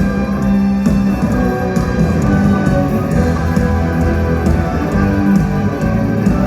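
Live rock music from a band playing with an orchestra: electric guitar, sustained pitched parts and a steady drum beat, at an even loudness.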